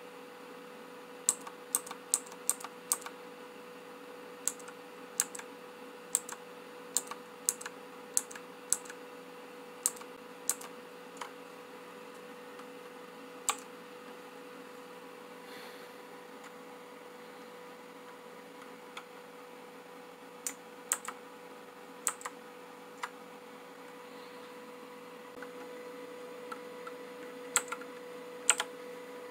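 Keys pressed one at a time on a Rizum Z15 mechanical keyboard with clicky blue switches: sharp, irregular clicks, coming quickly at first and then more sparsely, with a pause of several seconds in the middle and a few more near the end. A steady faint hum lies underneath.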